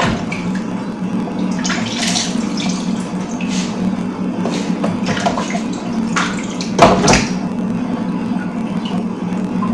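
Water running from a kitchen tap as food is washed in the sink, with splashing and scattered knocks, the loudest about seven seconds in.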